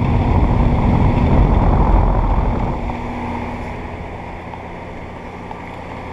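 Amana ASX14 5-ton central air conditioner condenser running: a steady fan rush over a low, even hum. Wind buffets the microphone, most strongly in the first three seconds.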